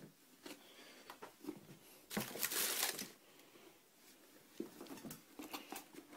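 Tissue paper rustling and crinkling as a pair of sneakers is handled and lifted out of its box, with scattered small knocks; the loudest rustle comes about two seconds in and lasts about a second.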